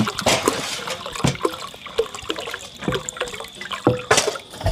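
Water being poured into a cooking pot to fill it, with several sharp knocks along the way.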